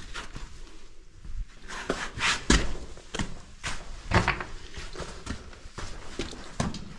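Footsteps crunching on the sand and gravel floor of a narrow sandstone slot canyon, an uneven walking rhythm of about one or two steps a second, with a few louder scuffs in the middle.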